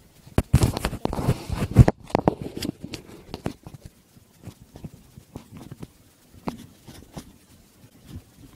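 Handling noise of a phone camera being moved and set down beside an electronic keyboard: a burst of rubbing and knocks over the first two seconds, then scattered light taps and clicks.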